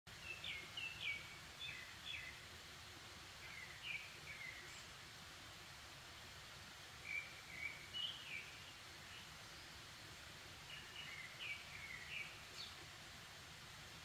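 A bird singing short phrases of quick, chirpy notes, four phrases a few seconds apart, over faint steady outdoor background noise.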